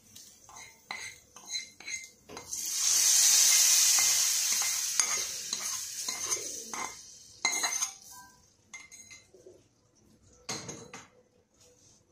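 Hot-oil tempering of mustard seeds and curry leaves poured into a pan of curry, hissing loudly a couple of seconds in and dying away over a few seconds. Spoon and ladle clinks against the metal pans come before and after.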